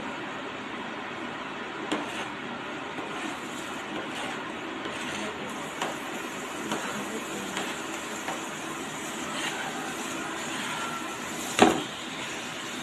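Ground beef with onion and garlic cooking in a pan: a steady hiss with a few light utensil clicks, then one sharp knock of a utensil against the pan near the end.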